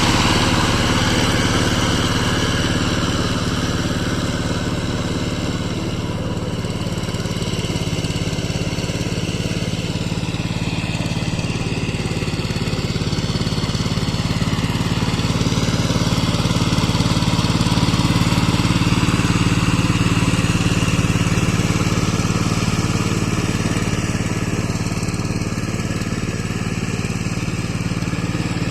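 Power tiller engine running steadily under load as its rotavator churns mud.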